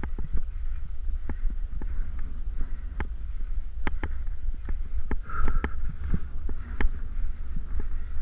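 Mountain bike rattling and clicking irregularly as it rides over a dirt trail, under a constant low wind rumble on the microphone, with one short squeak about five seconds in.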